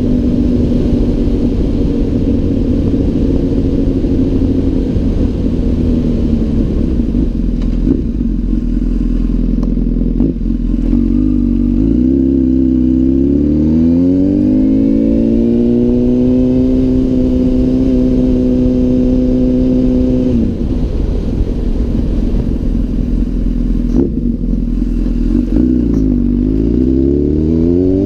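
Honda CBR1000RR inline-four sportbike engine under way at low speed, heard from the rider's helmet. About halfway through the revs climb as it accelerates, hold steady, then fall off about two-thirds of the way through; near the end they dip and climb again.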